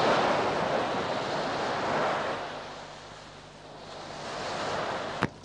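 Sea surf surging and breaking against rocks. The wash rises and falls in about three swells, and a single sharp click comes just before the end.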